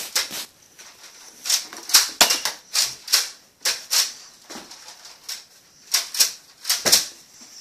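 A string of irregularly spaced sharp clicks and snaps, about a dozen, from Nerf foam-dart blasters being primed and fired.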